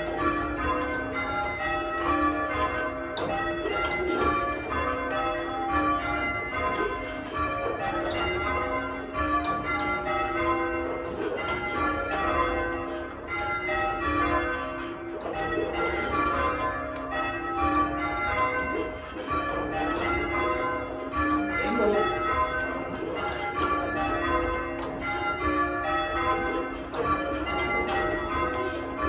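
Church tower bells being rung by a team of bellringers, the bells striking one after another in a steady, unbroken sequence, each stroke ringing on into the next.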